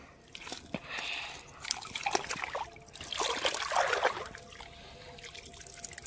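Shallow river water sloshing and trickling in irregular spells as hands rinse the catch at the water's edge.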